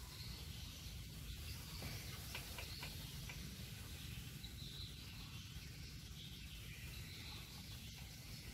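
Faint outdoor ambience: a low steady rumble with faint high chirping and a few soft ticks.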